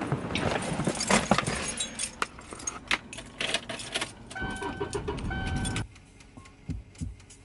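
A bunch of car keys jangling and clicking as someone settles into a car and puts the key in the ignition. About four and a half seconds in, the car's dashboard chime sounds in two short steady tones, then it goes quiet.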